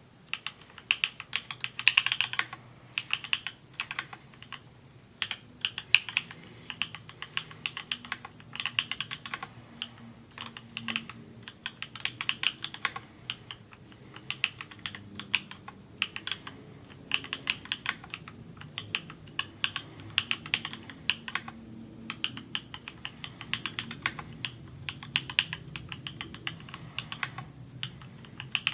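Typing on an S&R Magnus175 custom mechanical keyboard: quick runs of keystrokes, clacking key by key, broken by brief pauses.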